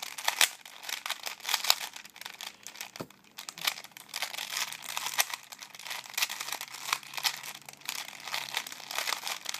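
Rubik's Cube layers being turned: dense, irregular plastic clicking and scraping, mixed with rustling as the cube rubs against skin and clothing.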